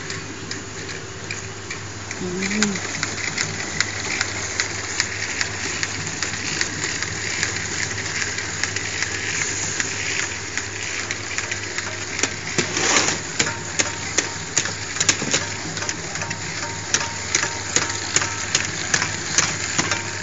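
Automatic horizontal rolling labeling machine running: a steady hum under rapid clicking and ticking from the mechanism. In the second half the clicks grow louder and more regular, about two a second.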